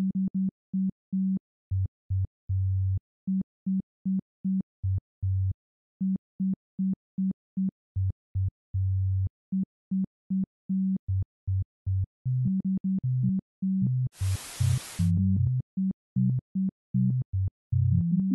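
Electronic music: short, staccato synthesizer bass notes repeating in a bouncing two-pitch pattern, with a brief burst of hiss about fourteen seconds in.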